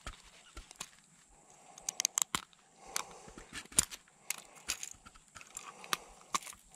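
Irregular sharp clicks and ticks from forceps and a small wobbler's metal hooks as the lure is worked free from a chub's lip. There is a quick cluster of clicks about two seconds in and a louder one near four seconds in.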